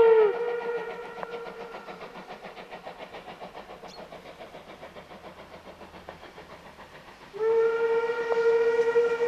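Steam locomotive whistle cutting off just after the start, its pitch sagging as it closes. Then the quick, regular exhaust chuffs of the double-headed Class 50 and Class 52 steam locomotives working a train. About seven seconds in, a long, steady steam whistle blast begins.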